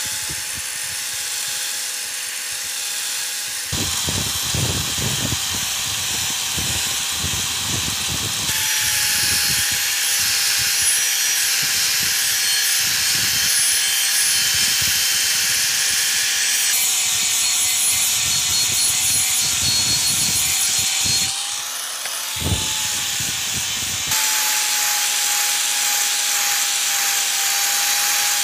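Electric angle grinder running with a steady whine as its abrasive disc grinds rust off the edge of a steel chopping blade, with a dense grinding hiss that exposes bright metal. The grinding noise shifts abruptly a few times, and about two-thirds through it dips briefly with a single knock.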